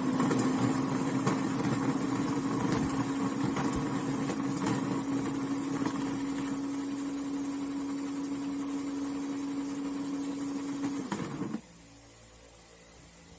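Electric coffee grinder's motor running with a steady hum while it grinds coffee beans to a medium grind, the beans crackling as they are crushed. The motor cuts off suddenly near the end.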